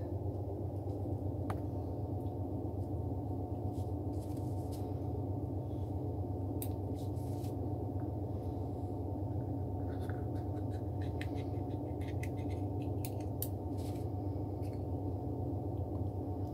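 Small scissors snipping and scratching through leathery ball python eggshell in short, irregular snips, over a steady low hum.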